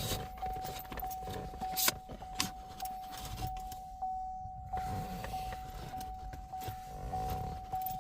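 Chevy Camaro's key-in-ignition warning chime dinging steadily, a little under twice a second, while keys jangle and click in the ignition lock. The chime keeps going because the key is stuck in the lock cylinder and the car is not sensing that it is in park.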